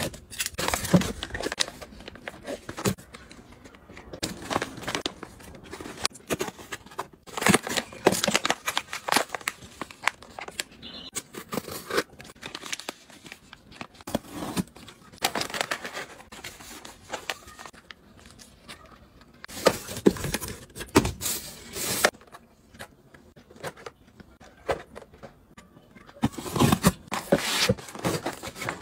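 Unboxing by hand: a cardboard box is cut open and its flaps pulled back, and plastic pet food pouches and bags crinkle as they are lifted out. The sound comes in irregular bursts of rustling, scraping and tearing.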